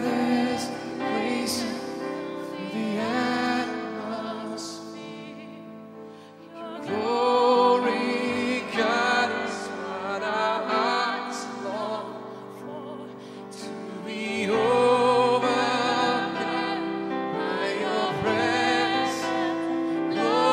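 Slow live worship music from a small band: a held, wavering melody over sustained chords, swelling into new phrases about seven and fifteen seconds in.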